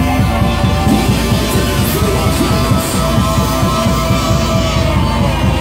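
Loud church praise music with a fast, steady drum beat under long held notes.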